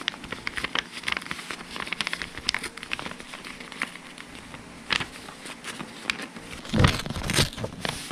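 Paper PIN mailer being handled and torn open by hand: quick small crackles of paper, then two louder rustles near the end.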